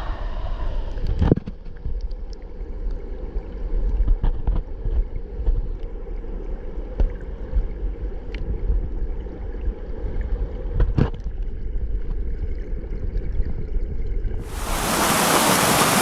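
A mountain stream heard from underwater: a muffled, low rush of flowing water, with a few short knocks, about one a second in and another about eleven seconds in. Near the end the microphone comes up out of the water and the full, bright hiss of a small waterfall cuts in.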